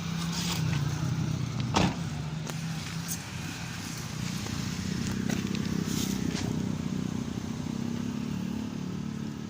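Car engine running with the power steering under full load, its note shifting upward and wavering through the middle and later part; the noise is put down to the power steering belt. A single sharp knock about two seconds in.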